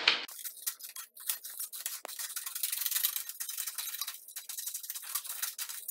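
Scissors cutting through a paper instruction sheet: a steady run of crisp, quick snips mixed with the rustle of the paper.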